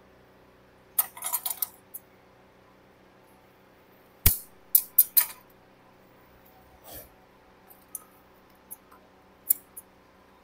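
Sharp clicks, taps and a knock of small hard objects being handled and set down on a tailor's cutting table: a short rattle about a second in, the loudest knock about four seconds in, then a few lighter clicks, over a faint steady hum.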